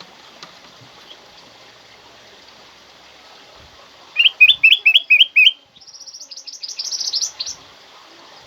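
Kutilang emas bulbul singing: a phrase of about seven quick, sharp whistled notes about halfway through, followed at once by a faster, higher rippling trill that stops about a second before the end.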